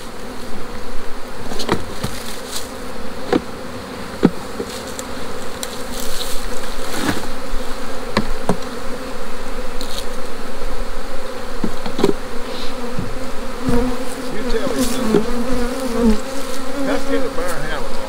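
Honeybees buzzing in a steady drone around an opened hive, the buzz growing louder and wavering near the end as bees fly close. Scattered sharp knocks come from wooden hive frames and boxes being handled.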